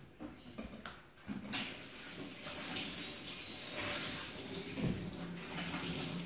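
Water running from a kitchen mixer tap into a stainless steel sink. It comes on about a second and a half in, after a couple of small knocks, and splashes steadily.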